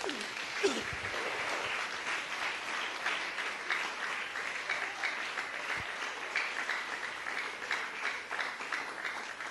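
A church congregation applauding: many hands clapping together at an even, steady level.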